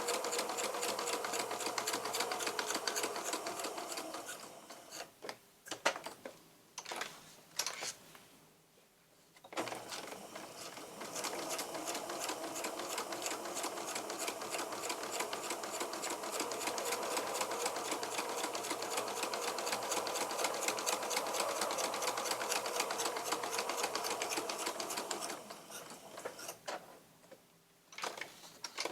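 Electric sewing machine stitching around the edge of a paper card, running in two long steady runs with a stop of several seconds between them. A few separate clicks fall in the pauses.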